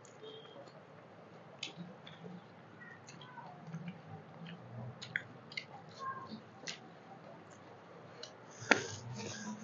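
Close-miked eating by hand: wet squishes and small clicks of fingers mixing rice and curry on steel plates, with chewing and lip smacks. One sharp clack near the end is the loudest sound.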